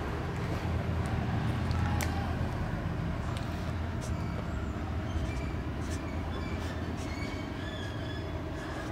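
Marker squeaking in short strokes on a whiteboard, mostly in the second half, over a steady low background rumble.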